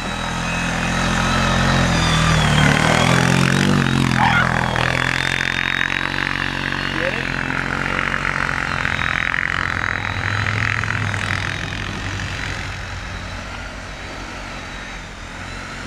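ATV engine running under throttle as it pulls a snow tube through deep snow. It is loudest as it passes close about two to four seconds in, then fades steadily as it moves away.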